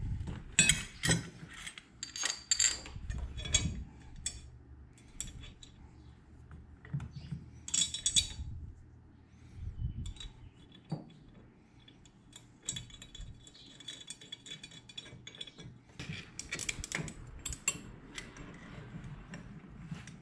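Metal fittings of a racing harness and hand tools clinking and jangling on a workbench, in irregular bursts of sharp clicks, busiest in the first few seconds, around the middle and again near the end.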